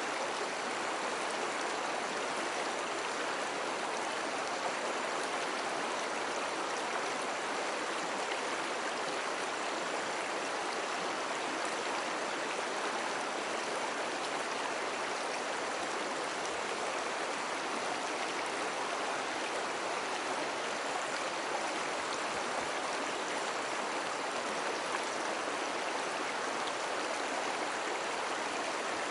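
Slow river water flowing steadily: an even, continuous rush and babble of a stream, with no distinct splashes.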